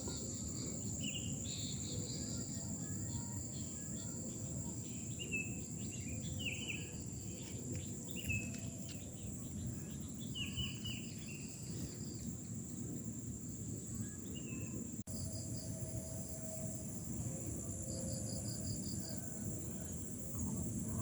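A steady high-pitched drone of crickets or similar insects, with short bird chirps scattered through the first two-thirds. There is a low rumbling outdoor noise underneath, and the sound drops out for a moment about 15 seconds in.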